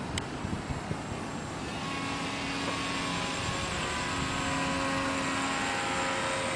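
Radio-controlled Cessna 182 scale model's motor and propeller droning steadily as it flies overhead, growing gradually louder from about two seconds in. Gusty wind rumbles on the microphone underneath.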